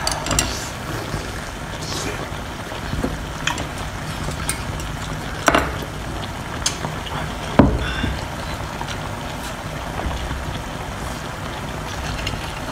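Wet mouth sounds of someone chewing and slurping cooked octopus, with a few sharp clicks, the loudest about five and a half and seven and a half seconds in.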